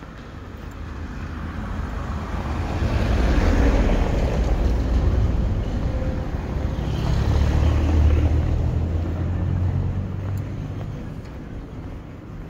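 Motor vehicles passing close by on a road: the sound swells and fades twice, loudest about four seconds in and again about eight seconds in, with a low engine rumble under the tyre noise.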